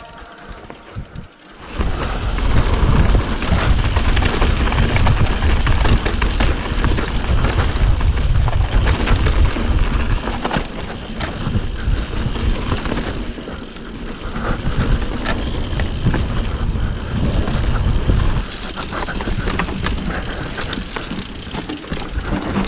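Mountain bike descending a dirt trail, heard from a camera mounted on the rider or bike: wind buffeting the microphone with a heavy rumble, tyres on dirt, and short clattering knocks from the bike over rocks and roots. The rumble comes in about two seconds in and eases near the end.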